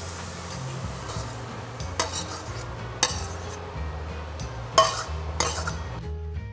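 A metal spatula clanking and scraping against a wok as bean sprouts are stir-fried with a light sizzle, with a few sharp clanks, over background music. The stirring and sizzle stop about six seconds in, leaving only the music.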